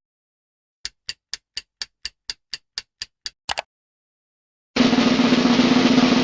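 Clock-ticking sound effect counting down a quiz timer: about a dozen ticks at roughly four a second for about three seconds. Near the end a loud, steady drum roll starts.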